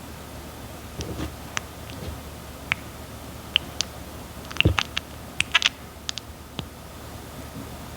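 Red-footed tortoise eating papaya: scattered sharp, wet bites and clicks, with a quick cluster of them about halfway through.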